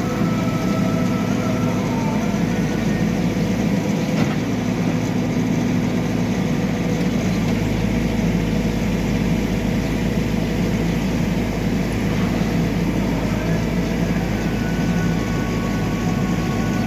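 Backhoe loader's diesel engine running steadily, with one short knock about four seconds in.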